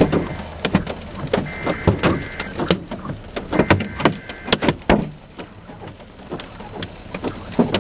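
Hailstones, about three-quarters of an inch or larger, striking a car's body and glass, heard from inside: irregular sharp knocks, thickest in the first five seconds and thinning out after that.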